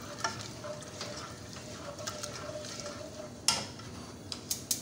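A spoon stirring a thick milk-and-flour white sauce in a saucepan, scraping softly round the pan, worked fast to keep lumps from forming. About three and a half seconds in the spoon knocks loudly against the pan, and near the end it clacks against the pan quickly and evenly, three or four times a second.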